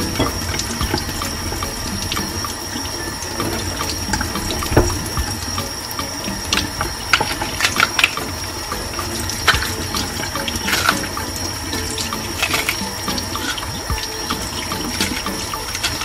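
Kitchen tap running steadily into a stainless steel sink, with scattered short clicks and scrapes of a knife working the peel off green bananas.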